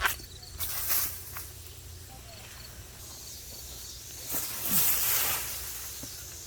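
Rustling of corn plants and husks being handled, in two bursts, the second about four seconds in and the louder, with a sharp click at the very start.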